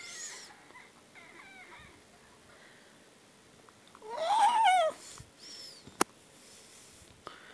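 Domestic cat meowing: a short call at the start and a faint wavering one soon after, then a loud, drawn-out, wavering meow about four seconds in. A single sharp click follows about six seconds in.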